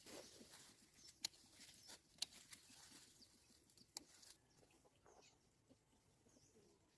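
Faint bird calls, with a few sharp clicks in the first half.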